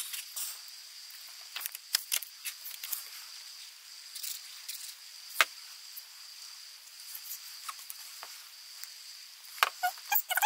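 Paper and cardstock being handled and pressed down on a tabletop: scattered light taps and rustles, with a sharper tap about halfway through and a quick cluster of taps near the end.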